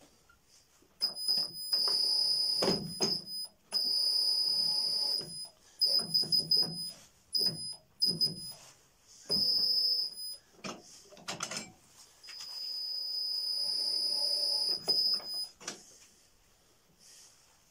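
Uzor-N1 hand-lever cold-forging machine bending a steel bar into a scroll: high-pitched metal-on-metal squealing in repeated stretches of one to three seconds, with sharp clanks of steel between them.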